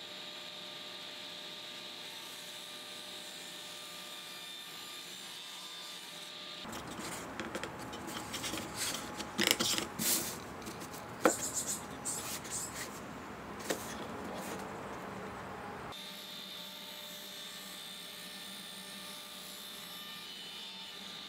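Redwood frame pieces handled on a workbench, rubbing and sliding with several sharp wooden knocks, as a mitered side piece is test-fitted against the slatted mat. Before and after this handling there is only a steady workshop hum with a faint high whine.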